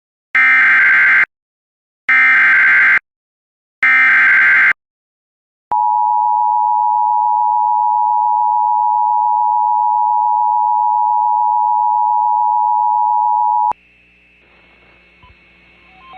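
Emergency Alert System SAME header: three loud one-second bursts of screeching digital data tones about two seconds apart. They are followed by the EAS attention signal, a steady two-tone beep held for about eight seconds, which cuts off abruptly to a faint background hiss.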